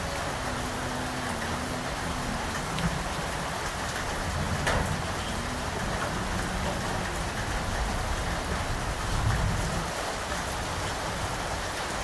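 Steady rain falling on surfaces, with a few sharper drop hits standing out. Low rumbles swell up a couple of times underneath.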